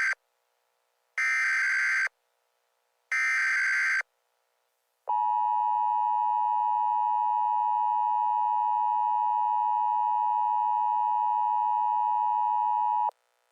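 Emergency alert header data bursts, each about a second long and buzzing, about a second apart, with the tail of one and then two more. After a short pause comes a steady emergency alert attention tone, which holds for about eight seconds and cuts off abruptly: the signal that a warning message follows.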